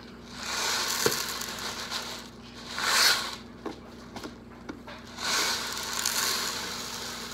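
Cardboard box of Minute white rice being torn and pried open by hand, tearing and crinkling in three bursts, the loudest about three seconds in.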